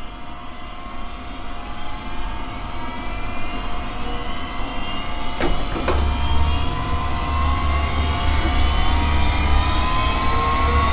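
Synthesized sci-fi "laser of doom" sound effect: a layered electronic drone whose tones rise slowly in pitch as it grows louder, like a weapon charging up. Two sharp crackles come about five and a half seconds in, and a deep rumble sets in just after.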